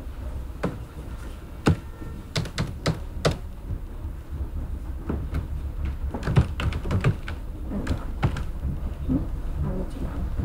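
Computer keyboard being typed on: irregular key clicks coming singly and in quick clusters, over a steady low hum.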